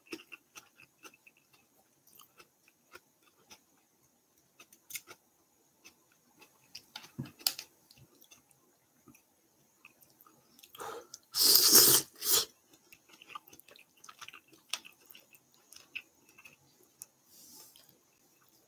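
A person chewing and eating ramen with small wet mouth clicks throughout, and a loud slurp about eleven seconds in.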